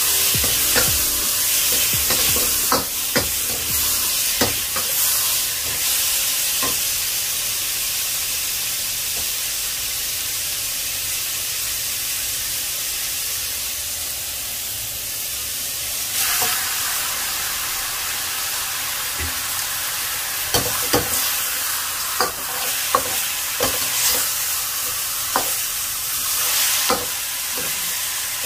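Onions and tomatoes sizzling in a hot wok, stirred with a metal ladle that clicks and scrapes against the pan. About halfway through the sizzle jumps louder as raw pork goes into the wok, and the ladle knocks more often as the pork is turned.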